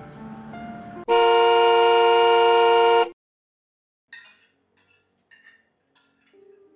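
A single steady car horn blast about two seconds long, starting suddenly over soft music and cutting off sharply into silence. Then light clinks of cutlery on plates, with a faint held music tone entering near the end.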